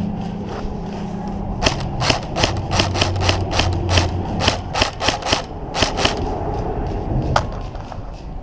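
Footsteps of a player moving up the field, an even run of about three steps a second for several seconds.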